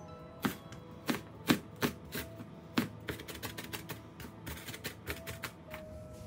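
Kitchen knife chopping a Japanese long green onion on a plastic cutting board: separate sharp knocks, roughly two a second, fewer and softer after about three seconds. Faint background music underneath.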